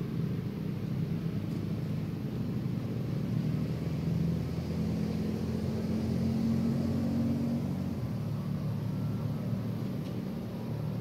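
Low, steady engine rumble with a hum that grows stronger through the middle.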